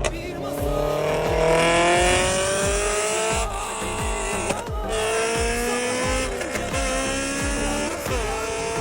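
Honda S2000's four-cylinder engine accelerating hard: its note climbs steadily in pitch and drops back briefly at each of several upshifts.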